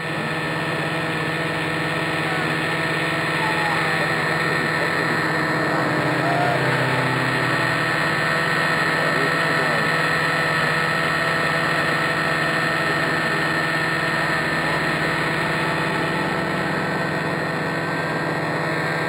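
Radio-controlled model helicopter in flight: a steady hum from its motor and spinning rotor, holding an even pitch throughout.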